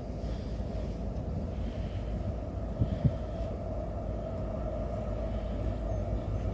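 Intermodal freight train running, a steady low rumble, with two brief knocks about three seconds in.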